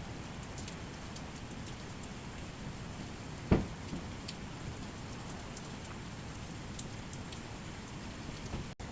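Dry firewood burning, a steady crackle with scattered small snaps and one sharp loud pop about three and a half seconds in.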